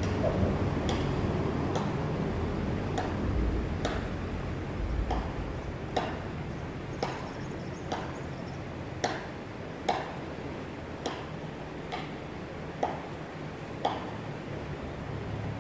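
Regular clock-like ticking, one short tick about every second, over a steady low rumble.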